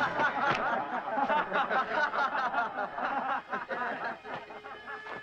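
A group of men laughing together, many voices overlapping, dying away over the last second or so.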